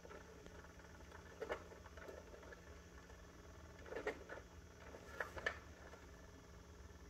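A kitten stirring on soft bedding in a wire crate: a few faint, short rustles, the clearest about four seconds in and a quick pair about a second later, over a low steady hum.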